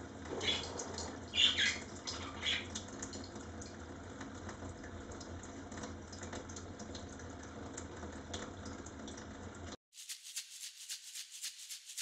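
Tap water running in a thin stream onto a budgerigar and into a stainless steel sink: a steady splashing hiss, with a few short high-pitched sounds in the first three seconds. About ten seconds in it cuts off abruptly and background music with a quick shaker-like rattle takes over.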